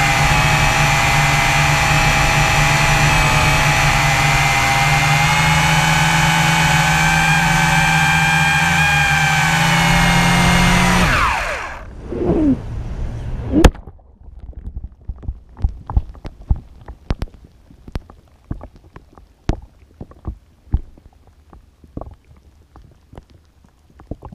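WLToys V666 quadcopter's motors and propellers humming steadily at flight speed, recorded through the GoPro mounted on it; a little before halfway the hum winds down in falling pitch as the drone, having lost its radio link, drops, and a sharp smack follows as it hits the lake. After that the GoPro is underwater: scattered muffled clicks and knocks, much quieter.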